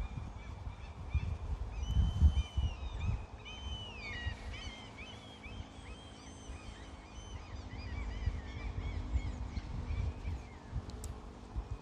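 Several birds calling in a busy series of short chirps and whistled notes, thickest in the middle, over low rumbling gusts of wind on the microphone.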